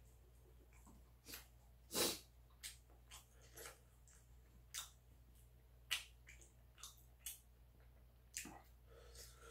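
Quiet, scattered mouth and breath sounds of a man eating very spicy food: short sharp breaths and sniffs, chewing and lip smacks. The loudest is a sharp breath about two seconds in.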